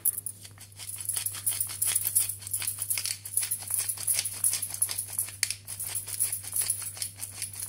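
Wooden pepper mill being twisted by hand, grinding black peppercorns with a fast, dense crackling rattle.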